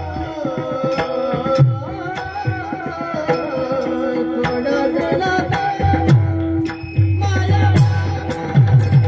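Devotional music with mridang accompaniment: an ornamented, bending melodic line over low mridang drum strokes and sharp high clicks. The drumming turns dense and rapid near the end.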